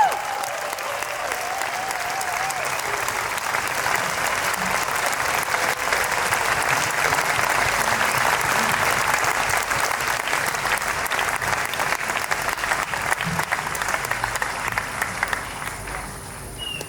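Large audience clapping, a dense, steady applause that dies away near the end.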